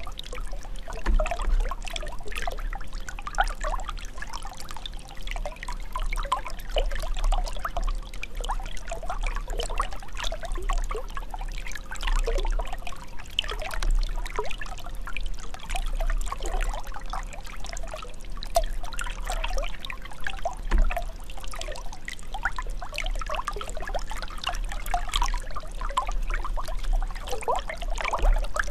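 Running water trickling and gurgling continuously, a dense stream of small bubbling notes over a low rumble.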